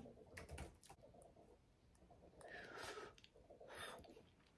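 Near silence, with faint clicks and soft mouth sounds as a forkful of food is taken into the mouth and bitten.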